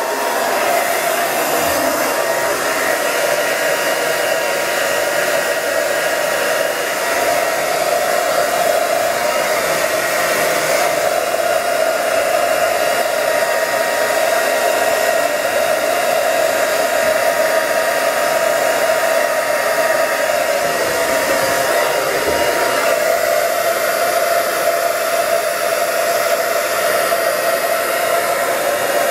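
Handheld hair dryer with a concentrator nozzle switched on and running steadily, a constant whine over the rush of air.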